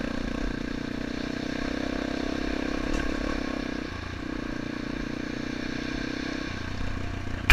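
2009 Yamaha XT250's single-cylinder four-stroke engine running steadily under way on a dirt trail. Its note drops off briefly about four seconds in, then picks up again.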